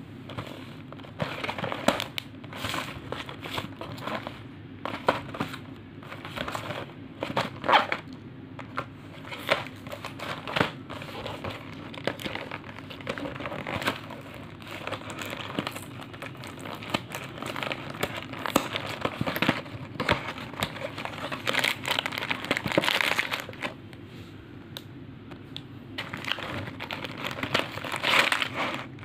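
A cardboard biscuit carton being handled and opened by hand: irregular scraping, tapping and rustling of the card, with crinkling of the plastic-wrapped biscuit packs inside as they are pulled out near the end.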